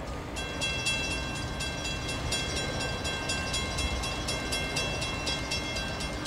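CSX freight train I145 approaching with a low rumble, while a grade-crossing bell rings in quick, steady strokes from about half a second in.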